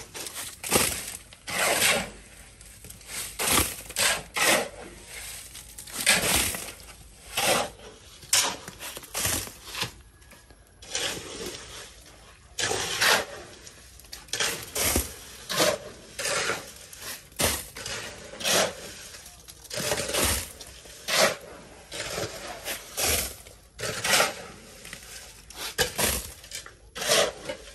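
Steel shovels scraping across a concrete floor and scooping wet gravel mix by hand, in repeated, irregular strokes with the gravel rattling off the blades. Two shovellers work at once, so the strokes overlap.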